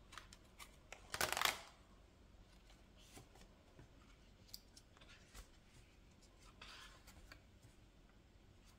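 Stiff cardstock pages turned by hand. A loud papery swish comes about a second in and a softer one around seven seconds in, with light taps and rustles between.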